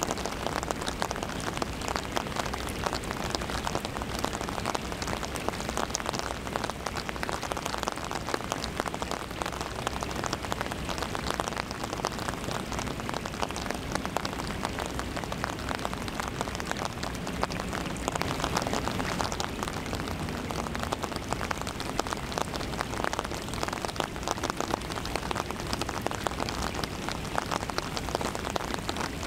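Rain hitting an umbrella held just over the camera: a dense, steady spatter of drops close to the microphone.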